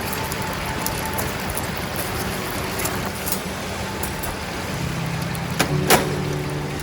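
Steady rushing of a river, with a couple of sharp crackles from the wood campfire near the end.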